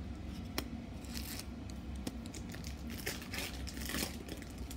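Pokémon trading cards being handled: cards slid and flicked through by hand and laid down on a concrete floor, with crinkling of foil booster-pack wrappers and a few light clicks. A steady low hum runs underneath.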